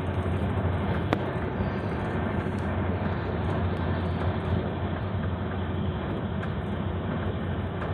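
Steady rumble and running noise of a moving vehicle, with a strong low hum.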